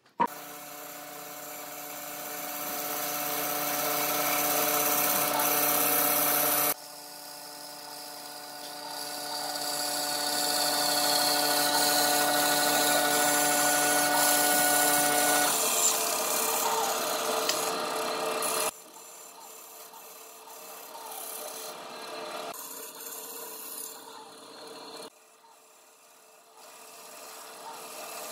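Band saw running and cutting a curve through a thick laminated wooden block: the blade hisses through the wood over the machine's steady hum, the sound growing louder as the cut bites and changing abruptly several times.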